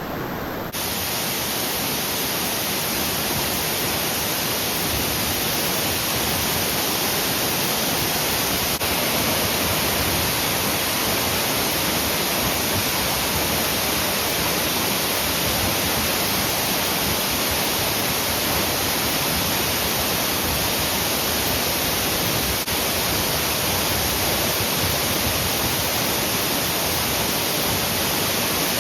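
Waterfall rushing steadily: a dense, even hiss of falling water.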